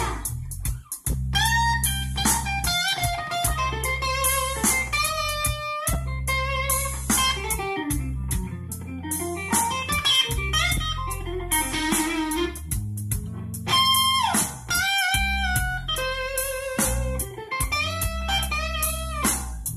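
Guitar-led music with a steady bass line playing from a car stereo, a Kenwood KDC-100U head unit driving an Art Nouveau AN4.400 amplifier, heard inside the car's cabin. The speakers have been broken in with more than ten hours of play.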